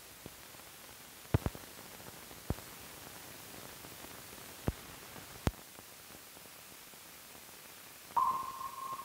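Hiss of an old film soundtrack running over blank leader, with a handful of scattered clicks and pops. Near the end a single steady high tone starts suddenly and fades away over about two seconds.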